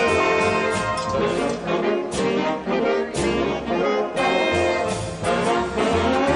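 Big band playing a jazz waltz, with the trombones prominent in short, separated phrases over a steady bass line.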